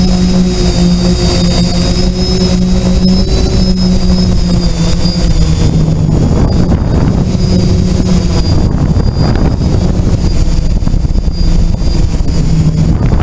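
Quadcopter's electric motors and propellers droning with a steady hum, heard from the onboard camera. A little after halfway the pitch drops slightly and the sound gets rougher as the throttle is eased back to bring the quad down.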